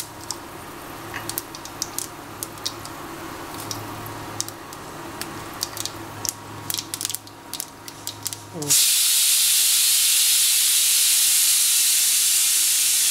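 Mustard seeds spluttering in hot oil in a pan, irregular sharp pops and crackles. About nine seconds in, a loud steady hiss starts suddenly and drowns them out.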